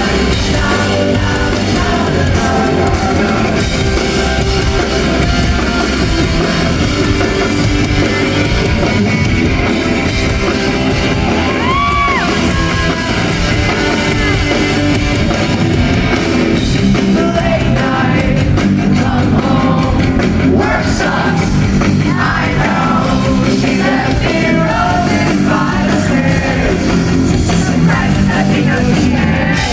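Pop-punk band playing live through a PA, with electric bass, drums and a lead vocal sung into the microphone, loud and continuous, heard from within the audience.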